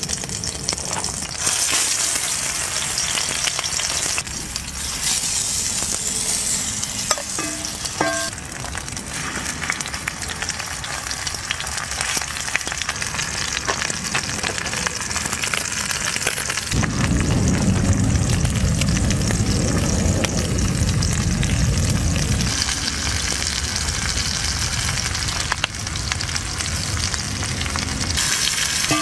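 Steaks searing in oil in a cast-iron pan, a steady sizzle throughout, with a deeper rumble for about five seconds past the middle.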